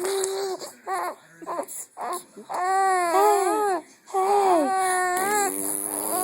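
A 3-month-old baby crying and fussing: a string of short wailing cries, each rising and falling in pitch, with brief pauses between them.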